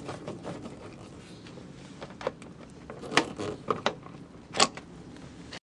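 Handling noise: scattered sharp clicks and knocks, the two loudest about three and about four and a half seconds in, over a low background hiss.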